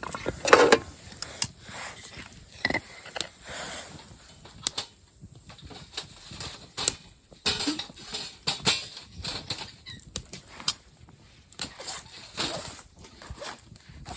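Irregular rustling with scattered sharp knocks and clicks, like gear being handled by hand; the loudest knock comes about half a second in.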